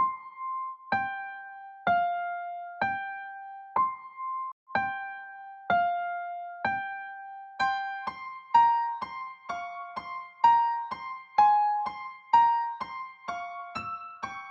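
Film-score music: a simple melody of single piano-like keyboard notes, each struck and left to fade, about one a second at first, then quickening to about two a second about eight seconds in.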